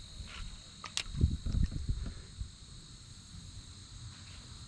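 Insects buzzing steadily with a high, even tone, with a sharp click about a second in and a few dull low knocks just after it.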